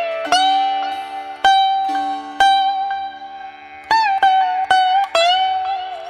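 Background music: a plucked string instrument playing a slow melody, its notes sliding and bending in pitch over steady drone tones.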